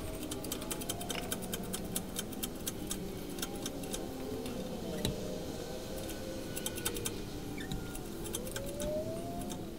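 Irregular light metallic clicks and clinks from an engine hoist's chain and hardware as the hanging engine is guided by hand toward the transmission, with a wavering tone underneath.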